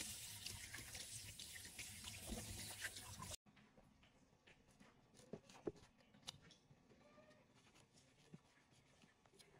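Tap water running over a pumpkin being rinsed by hand in a sink, a steady splashing hiss that stops abruptly about three and a half seconds in. After that, a few faint clicks and knocks of a kitchen knife cutting into the pumpkin's rind on a wooden cutting board.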